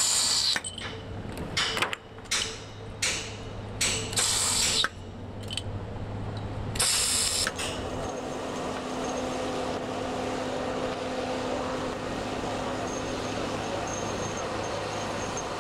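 Stud welding gun firing steel shear studs onto a beam in quick succession: about ten short hissing arc bursts over the first seven seconds or so, each a fraction of a second long, over a low hum. After that comes a steady even background noise with no further welds.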